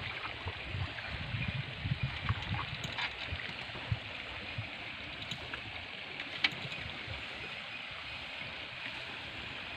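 Steady rush of river water, with gurgling and dripping as a wet cast net is hauled up out of the river. A few sharp knocks stand out, the loudest about six and a half seconds in.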